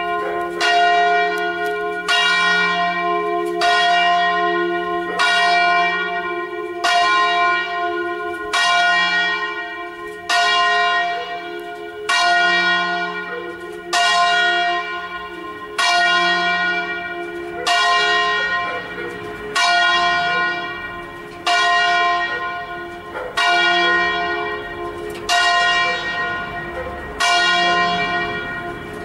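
Church bell ringing the midday call: a single bell strikes about every second and three quarters, and each stroke is left to ring out and fade before the next.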